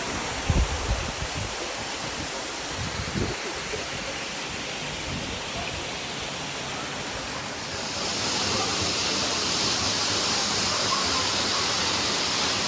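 Waterfall rushing in a steady roar of falling water, which grows louder and brighter about eight seconds in. A few low bumps on the microphone come in the first few seconds.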